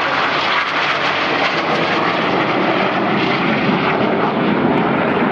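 Red Arrows BAE Hawk T.1 jets flying over in formation: a steady, loud rush of jet engine noise from their Adour turbofans.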